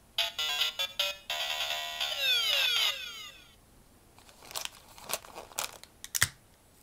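DX Dangerous Zombie Gashat toy playing its electronic game-over sound effect through its small speaker: a few short beeps, then a stepped jingle that ends in falling sweeps. After a pause come several sharp plastic clicks as the toys are handled, the loudest near the end.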